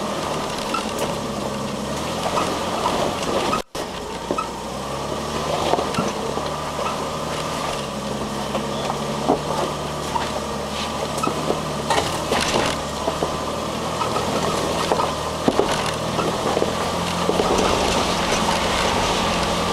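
Four-wheel drive's engine running steadily at low revs, pitch shifting a little, as the vehicle crawls up a rocky track, heard from inside the cab. Tyres crunch over rocks, with scattered knocks and rattles. The sound cuts out briefly about four seconds in.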